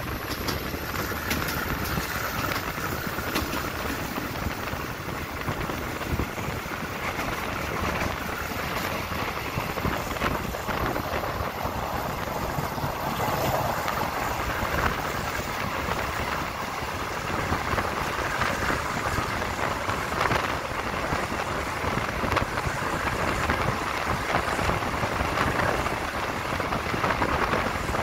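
Passenger train carriage running along the line, heard from its open window: steady rumble of wheels on the rails with the rush of passing air.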